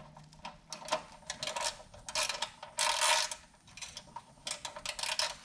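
Irregular mechanical clicking and rattling as the kill switch's mounting bolt is turned and tightened on the handlebar.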